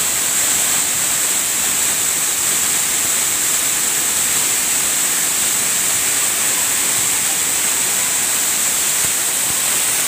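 Waterfall pouring down close by: a loud, steady rush of falling water with a strong hiss.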